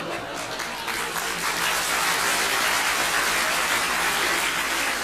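Audience applause, a dense patter of many hands clapping that swells about a second in and begins to ease off near the end.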